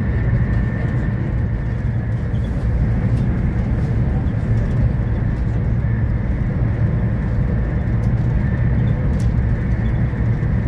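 Steady running noise inside a Renfe Alvia train's passenger coach travelling at speed: a low, even rumble of the wheels on the rails with a faint high whine above it.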